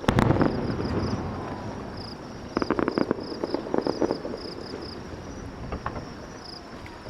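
A firework shell bursting with a loud bang at the start, its boom fading away over a few seconds, then a rapid run of crackling a couple of seconds later. Crickets chirp steadily in pulses underneath.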